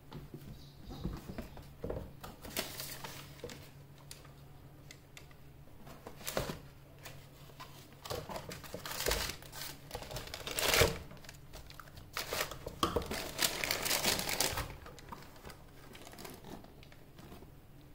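Tissue paper crinkling and rustling in several bursts as sandals are packed into a cardboard shoe box, with a few handling knocks, the loudest close to eleven seconds in.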